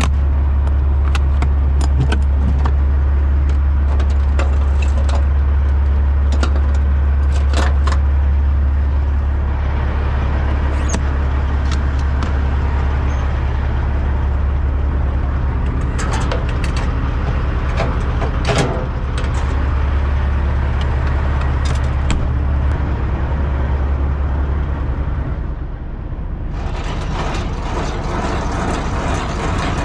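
Peterbilt 389 semi tractor's Cat C15 inline-six diesel running steadily with a deep drone, with scattered clicks and rattles. Near the end the deep drone drops away and a broader noise takes over.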